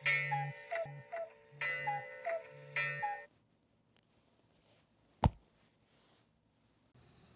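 Smartphone alarm playing a repeating chiming melody, switched off about three seconds in. A single sharp thump follows about two seconds later.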